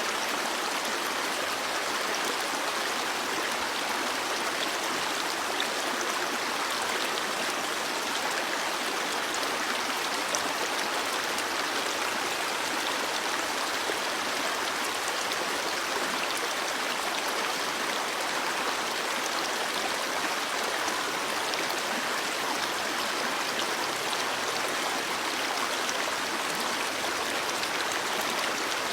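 Stream water flowing over rocks: a steady, even rush with no breaks.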